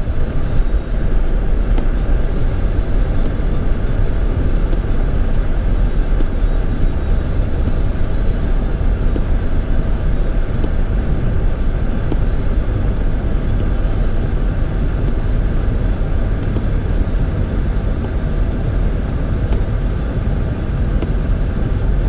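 Steady low rumble of an emergency response vehicle driving on a snow-covered road, heard from inside the cabin: engine and tyre noise.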